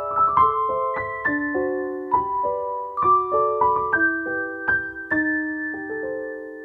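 Background music on piano: a gentle melody of struck notes, a few a second, ending about five seconds in on a held chord that fades away.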